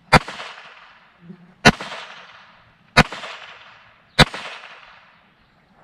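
Four shots from a GSG Firefly .22 LR pistol firing CCI standard velocity rounds, spaced a little over a second apart, each sharp crack trailing off in a short fading echo.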